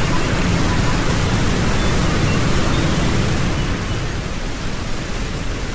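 Steady rushing noise of wind and water on an action camera's microphone.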